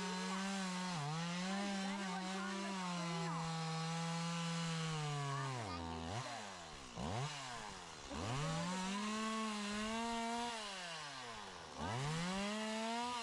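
Gas chainsaw held at high revs, cutting wood. It drops back toward idle about six seconds in, blips up and down a couple of times, then revs up again, with another brief drop near the end.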